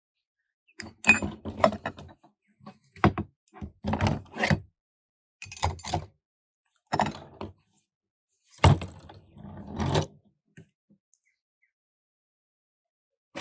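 Metal automatic-transmission parts being handled and set down during a teardown: a series of clanks, knocks and rattles coming in bursts over about ten seconds.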